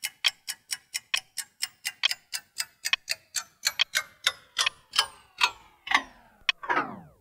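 Ticking sound effect for an intro title card: sharp, evenly spaced ticks about three a second. They slow toward the end as each tick rings longer and falls in pitch, closing with a longer falling sweep.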